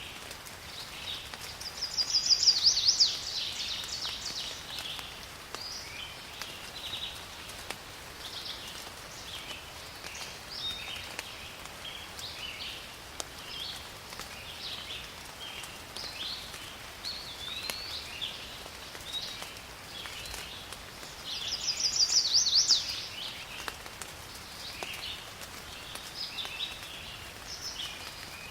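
Rainforest ambience: a steady hiss of rain with many short bird chirps throughout. A louder, rapid bird song of about a second rings out twice, about two seconds in and again around twenty-two seconds in.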